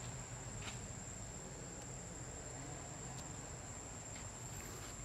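Insects droning at one steady high pitch, with a couple of faint ticks.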